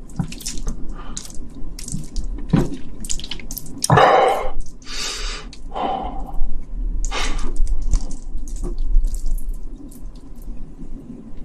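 Chopsticks stirring saucy buldak fire noodles and a broken fried egg: a run of wet, sticky squelches and small clicks, a few of them louder about four to five seconds in.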